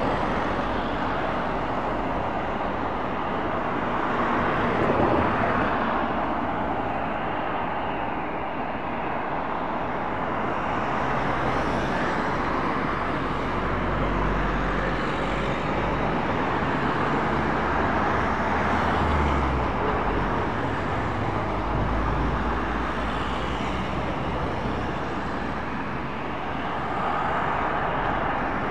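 Steady, even rumble of distant motor traffic, with no single sound standing out.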